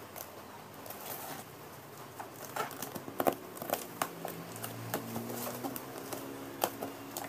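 A knife slitting packing tape along a cardboard box, with the tape crackling and tearing and the cardboard scraping and rustling. It starts sparse and turns into a run of sharp clicks and scrapes from about a third of the way in.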